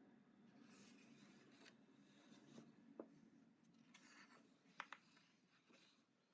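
Faint rustling of paper pages being handled and turned in a coloring book, with a few small soft clicks around the middle.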